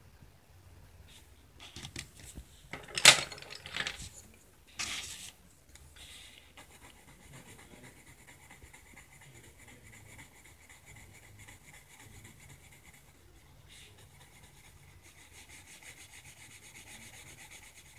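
Pencil shading on sketchbook paper: a faint, steady scratching of quick back-and-forth strokes. A few louder, sharp scrapes and knocks come between about two and five seconds in, the loudest near three seconds.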